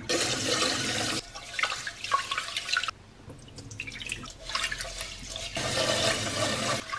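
Water pouring and splashing as cloudy rinse water is drained from a saucepan of sushi rice into a stainless steel sink, with the tap running into the pan to refill it. The flow is loudest at the start, quieter about three seconds in, then picks up again.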